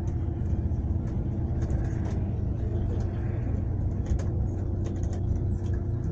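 Steady low engine and road rumble heard from inside a moving vehicle, with a faint steady hum and scattered light clicks and rattles.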